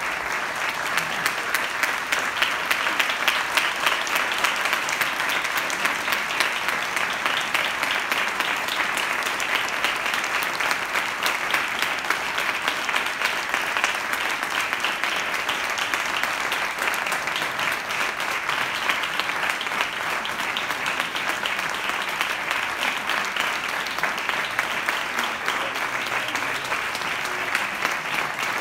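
Audience applauding, a dense, steady clapping that carries on throughout.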